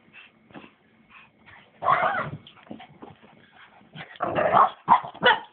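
Small dogs vocalising during rough play, in short irregular bursts that are loudest about two seconds in and again from about four seconds on.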